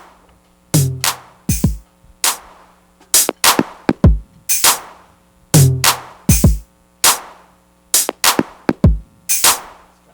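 Drum kit playing a repeating groove: deep kick-drum thuds and sharp snare cracks, with the same pattern coming round about every five seconds over a faint sustained low note.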